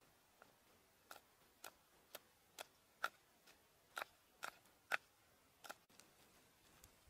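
Knife chopping fresh red chilies on a wooden cutting board: about ten sharp chops, roughly two a second, that stop near the end.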